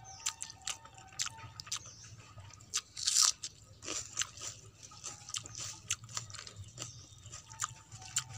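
Close-miked eating sounds of wet, water-soaked rice (panta bhat) and fried vegetables: many small sharp clicks and crunches, with one louder crunch about three seconds in, as fingers work the food on a steel plate and it is chewed.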